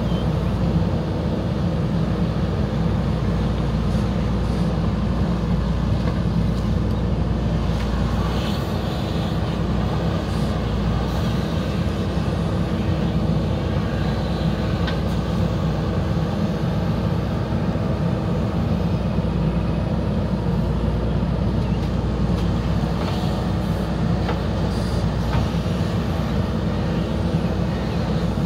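JCB 3DX backhoe loader's diesel engine running steadily under digging load as the backhoe arm works, with a few faint knocks now and then.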